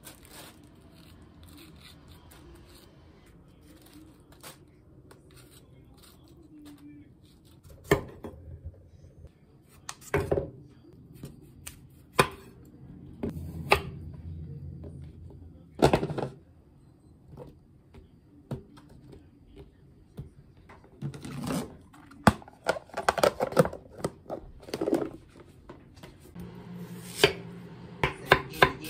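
A kitchen knife cuts through kabocha squash onto a wooden cutting board: separate hard knocks of the blade on the board, after soft scraping from a spoon scooping out the seeds at the start. Near the end, a run of quick, regular knife strokes on the board begins.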